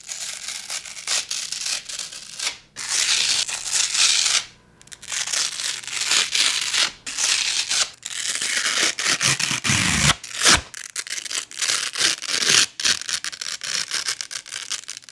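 Sanding disc peeled off the hook-and-loop pad of a Bosch random orbit sander, a crackly ripping tear repeated several times with short pauses between. The pad's hooks still grip firmly the whole way across.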